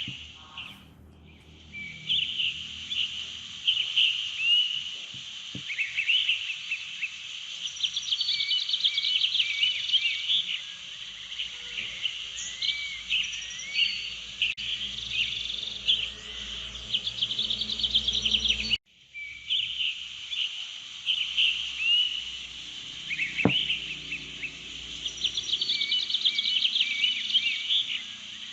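Many birds chirping and trilling over a steady high hiss. The recording cuts off abruptly about nineteen seconds in and starts over, a looped nature-ambience track.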